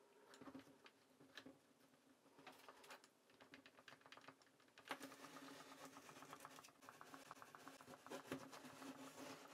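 Faint small clicks and rattles of a brass pin being turned and rapidly pushed and pulled in its sheath in an interlocking puzzle, with a quick run of light ticks in the second half.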